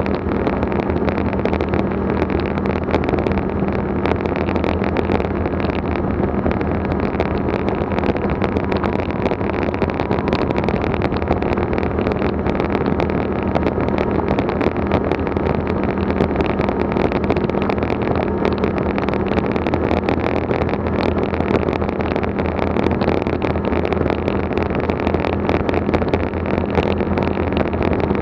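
Off-road vehicle's engine running at a steady cruising speed while driving on a gravel road, with a constant low hum and a dense noise of tyres and wind over it.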